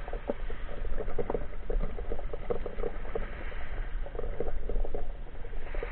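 Underwater noise picked up by a camera while the diver swims: a dense, irregular crackle of short clicks over a constant low rumble.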